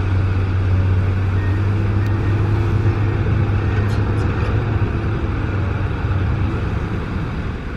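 Kobelco SK200 hydraulic excavator's diesel engine idling steadily with a low, even hum while the machine sits at rest.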